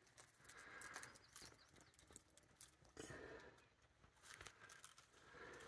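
Near silence, with a few faint soft scuffs and small clicks from a hiker's footsteps.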